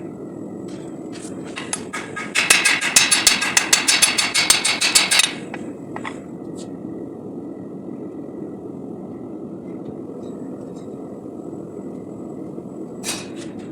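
A steady low roar, typical of a gas forge burner, with a quick run of sharp metallic strikes, about eight a second, from about two seconds in for some three seconds; a single brief burst comes near the end.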